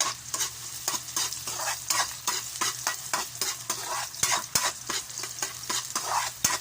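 Garlic and onion sizzling in hot oil in a pan while being stirred, with repeated scrapes and taps of the stirring utensil against the pan.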